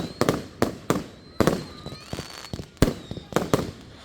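Fireworks display: a rapid, irregular volley of sharp bangs from exploding firework shells, about a dozen in four seconds. A faint high whistle is heard in the middle.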